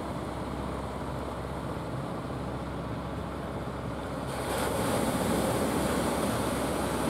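Sea surf and wind at the shoreline, a steady wash with a low rumble; about four seconds in a wave breaks and washes up the beach, louder and hissier.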